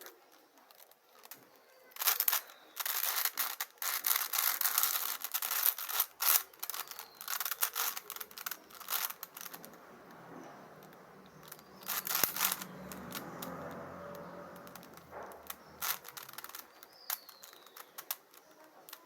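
Plastic 5×5 Rubik's cube being turned by hand: quick runs of clicking and scraping as the layers are twisted, with short pauses between bursts.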